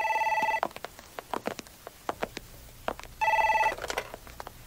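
Landline telephone ringing: a short electronic warbling ring at the start and another about three seconds later, with faint taps in between.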